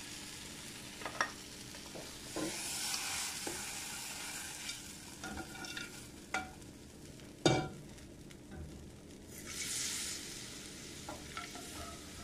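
Pasta and tomato purée sizzling in a hot skillet while a plastic spoon scrapes and stirs it, with a sharp knock of the spoon or pan against the broth pot about two-thirds of the way through. Near the end a louder hiss as liquid sizzles in the hot pan.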